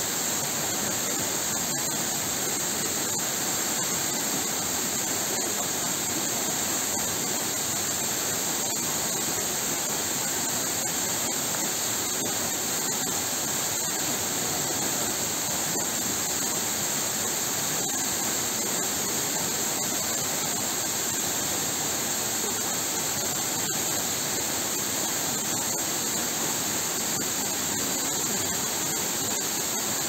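Tall, narrow waterfall plunging down a rock face into a pool: a steady, unbroken rush of falling water.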